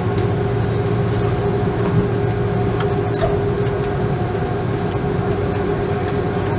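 Steady drone of an airliner heard from inside the passenger cabin: a constant low hum with a steady mid-pitched tone running through it.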